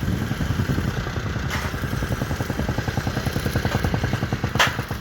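An engine running steadily with a fast, even pulse, with a faint click about one and a half seconds in and a sharp knock near the end.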